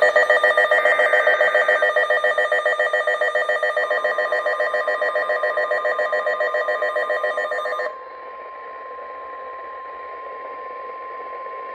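A weather alert radio's alarm sounds, loud and rapidly pulsing, for about eight seconds, then cuts off. About four seconds in, the steady single-pitch NOAA Weather Radio warning alarm tone starts and carries on alone after the pulsing stops. Together they announce an incoming warning, here a flash flood warning.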